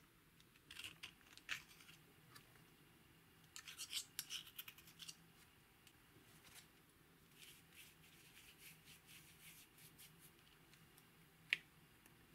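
Small pick scraping and breaking up pressed eyeshadow in a plastic compact pan. It makes faint, scratchy clicks in short bursts, with one sharper click near the end.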